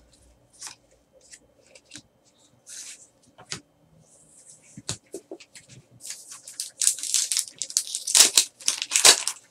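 Trading cards being handled and flipped through, with scattered light flicks and taps. From about six seconds in comes a denser crinkling rustle as a card pack's wrapper is torn open.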